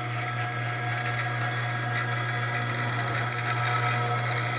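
Belt-driven drill press with a 110 V capacitor-start motor running steadily at its lowest speed, turning a tapping head as a tap cuts threads into an aluminium plate. A short rising squeal comes about three seconds in.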